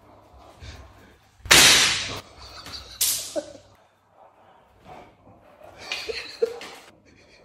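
Two loud whip cracks about a second and a half apart, each sharp at the start and fading quickly, as if from a long thin rod lashed through the air or against something.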